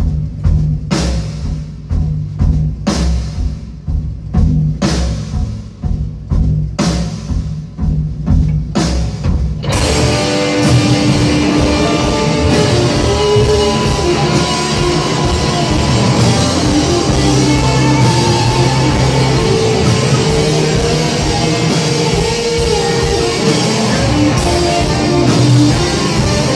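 Live psychedelic rock band. For about the first ten seconds, slow, heavy drum strokes come about once a second over a held low note. Then the whole band crashes in, loud and dense, with electric guitars and drums.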